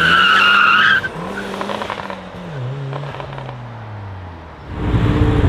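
Audi RS6 C7's twin-turbo V8 with a decatted Milltek exhaust accelerating hard away, tyres squealing in a high, steady screech that stops about a second in. The engine note dips with a gear change about two and a half seconds in, then falls and fades as the car pulls away. Near the end a loud rush of noise cuts in.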